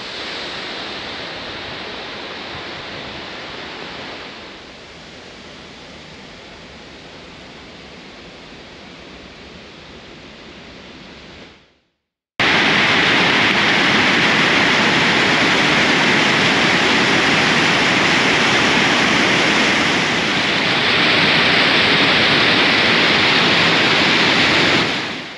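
A steady rushing noise that drops quieter about four seconds in and fades out just before the middle. After a moment of silence, the white-water rapids of a mountain torrent rush loudly and steadily, then fade out at the end.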